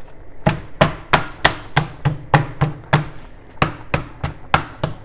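Wooden meat mallet pounding chicken breasts under cling film on a plastic cutting board: sharp thuds about three a second, starting about half a second in, with a short pause about two-thirds of the way through.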